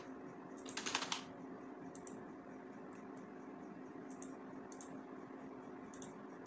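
A quick cluster of computer keyboard clicks about a second in, then a few scattered single clicks of a computer mouse, over a faint steady hum.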